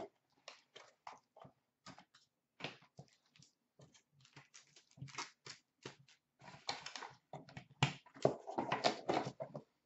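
Handling of a small white cardboard card box: flaps and lid opened and cards in plastic holders lifted out, as a string of short, faint scrapes, rustles and taps that grow busier near the end.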